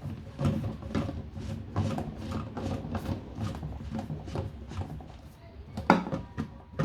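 Irregular plastic clicks and knocks from handling reverse osmosis filter cartridges and housings, with one sharper knock about six seconds in.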